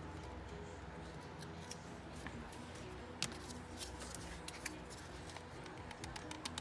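Quiet background music with a few sharp clicks and taps of wooden craft sticks being handled, the loudest a single click about three seconds in.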